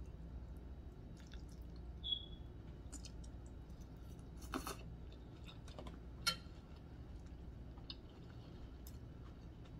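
Faint eating sounds: a metal fork clicking and scraping on a plate, spaghetti sucked in about halfway through, and chewing. One sharp fork clink comes a little after six seconds.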